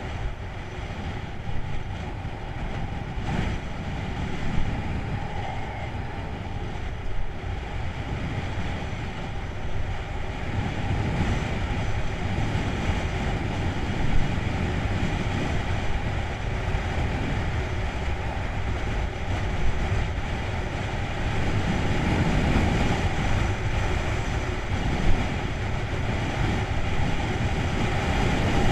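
Steady wind rush over the microphone of a bike-mounted camera, mixed with road and tyre rumble from riding along a paved road, with a few brief knocks from bumps.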